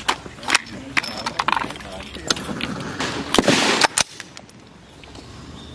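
Sharp metallic clicks and clacks of a rifle being handled and worked, with a longer rattling scrape about three seconds in.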